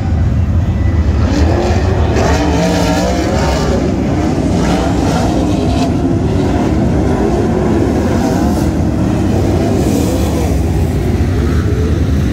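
Sprintcars racing on a dirt track: several engines rise and fall in pitch as they go on and off the throttle, over a loud, steady low rumble.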